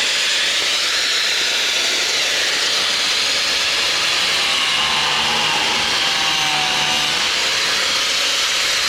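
Power tool running steadily with a loud hiss.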